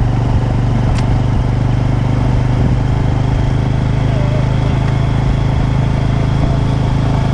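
Motor vehicle engine running at a steady, unchanging pitch, loud and continuous.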